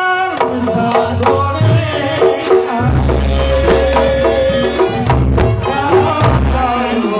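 Reog Ponorogo gamelan-style ensemble playing: quick kendang hand-drum strokes over pitched kettle-gong notes, with the large hanging gong struck about three seconds in and humming low.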